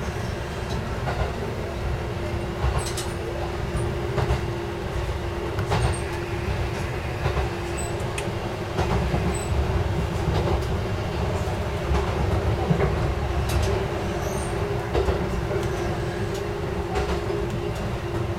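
Hitachinaka Seaside Railway KiHa 11 diesel railcar running at speed, heard from inside the car. The diesel drone and rumble are steady under a constant hum, and the wheels click over rail joints at uneven intervals.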